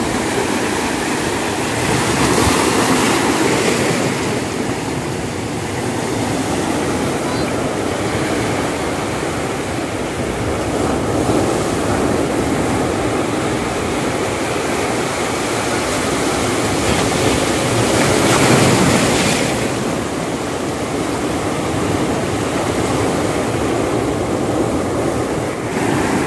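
Sea waves washing, with wind on the microphone; the noise swells twice, a couple of seconds in and again about eighteen seconds in.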